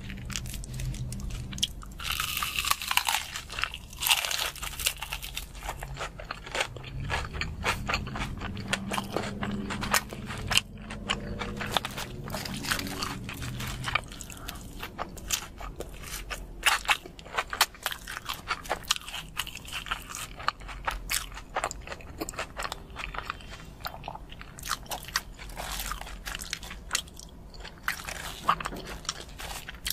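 Close-miked eating: crunchy bites into battered fried fish and fries, then chewing, with many sharp crackling crunches at an irregular pace.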